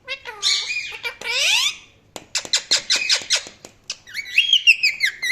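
Indian ringneck parakeet calling: harsh squawks with sliding pitch, then a quick series of sharp clicky chirps, and from about four seconds in a fast run of repeated chirps.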